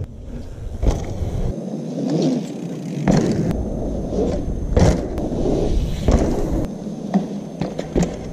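Mountain bike tyres rolling and crunching over a dirt trail, with several sharp clacks and rattles from the bike over bumps.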